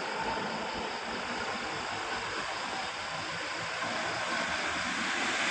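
Steady rushing noise of vehicle traffic, with no horn sounding, growing slightly louder near the end.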